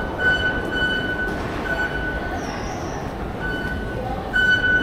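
Wuhan Metro train running, with a steady low rumble and an on-and-off high-pitched squeal in stretches of uneven length, typical of steel wheels squealing on a curve.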